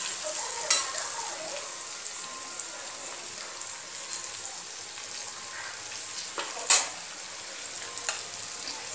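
Stuffed gourds sizzling steadily as they fry in hot oil in a metal kadhai, stirred with a steel slotted spatula. A few sharp clinks of the spatula against the pan stand out, the loudest about a second in and near seven seconds.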